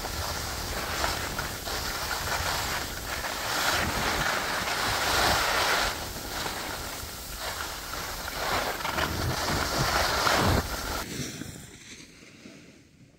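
Loud rushing noise of wind on the microphone and skis sliding over snow, swelling and easing. It drops off sharply about eleven seconds in to a faint hiss.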